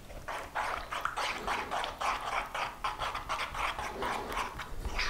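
Wooden spoon stirring thick sunflower-tahini mayonnaise in a bowl, working in a last splash of vinegar and water: a steady run of soft stirring strokes, about three or four a second.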